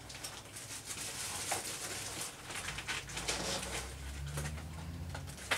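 Rustling and light clatter of papers and laminated plastic pockets being handled and sorted through in a search. A low, wavering hum comes in about halfway through.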